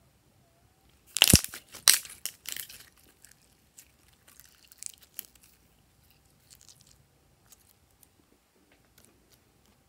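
Glossy slime being pressed and worked by hand, crackling and clicking as trapped air pops. A loud burst of sharp crackles comes about a second in, then fainter scattered clicks.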